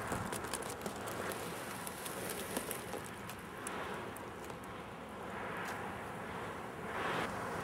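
Outdoor ambient noise: a steady hiss with scattered small clicks and a few soft swells.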